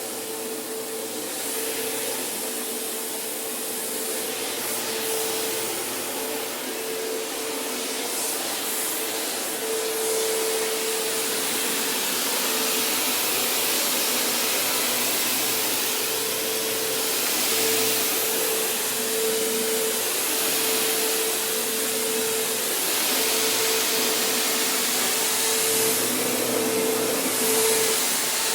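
Vacuum cleaner running steadily while vacuuming: a steady motor whine with a rushing hiss of air that swells and eases a little as the cleaner is moved about.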